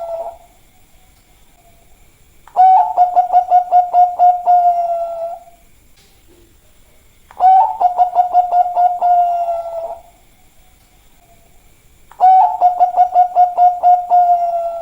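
Zebra dove (Bangkok-type perkutut) cooing: three loud phrases about five seconds apart, each a quick run of stuttering coos on one steady pitch that ends in a drawn-out note.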